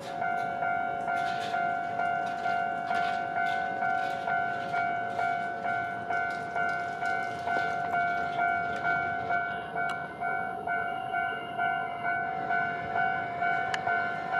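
Japanese level-crossing warning bell sounding its electronic "kan-kan" alarm. It starts suddenly and rings at an even beat of a little under two strikes a second.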